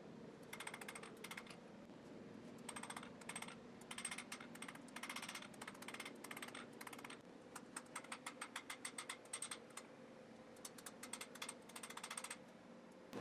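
Hammer striking a red-hot mild steel rod on an anvil, faint runs of quick light blows several a second, with short pauses between the runs.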